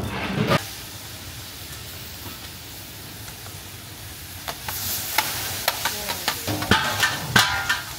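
Steady hiss of wood fires and steaming cauldrons. About halfway through, a large metal bowl starts scraping and clanking against a big cooking cauldron as rice is scooped and poured, with a quick run of knocks near the end.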